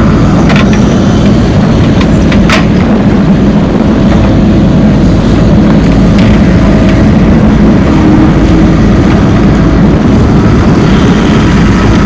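Heavy diesel engine of earth-moving machinery running steadily under load, with a couple of short metallic clanks about half a second and two and a half seconds in.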